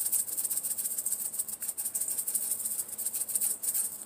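Spice shaker of dried oregano leaves shaken rapidly over a stainless steel bowl of boiled potato chunks, a continuous quick dry rattle.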